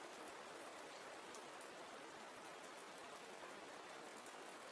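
Faint rain falling: a soft, steady hiss with a light patter of drops.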